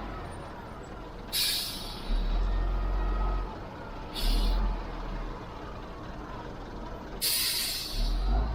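Heavy diesel machinery running with a steady low rumble, broken by three short bursts of hissing air, typical of air-brake or air-valve releases: about a second and a half in, about four seconds in, and a longer one about seven seconds in.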